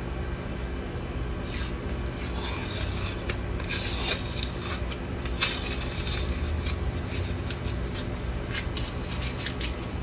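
Blue masking tape being peeled and unwound off the cut end of a stainless steel braided hose, crackling and rustling in short irregular streaks, with one sharp click about halfway through. A steady low hum runs underneath.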